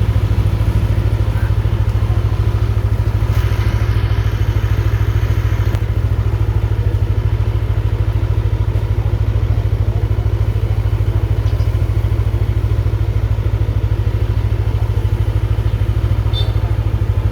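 Motorcycle engine running steadily at an even pitch, with no revving.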